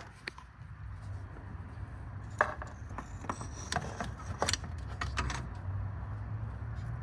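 A few scattered light clicks and rattles, like handling noise, over a low steady hum.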